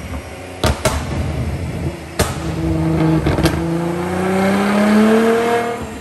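Nissan GT-R's twin-turbo V6 revving on a chassis dyno, with about four sharp exhaust bangs in the first half. Its note then climbs steadily in pitch and drops off near the end.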